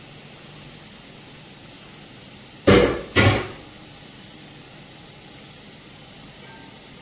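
Two loud knocks about half a second apart, each ringing out briefly, over a steady hiss.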